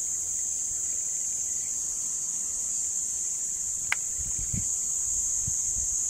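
Steady high-pitched chorus of insects such as crickets or cicadas droning without a break. There is a single sharp click about four seconds in and a few faint low thumps after it.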